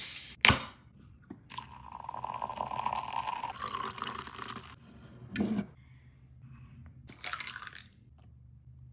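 Liquid pouring into a bowl for about three seconds, set off by a short sharp sound at the start and followed by a brief knock and another short hiss.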